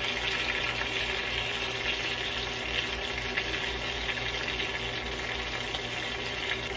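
Lumpia shanghai (Filipino spring rolls) frying in shallow oil in a nonstick wok, with a steady sizzle throughout.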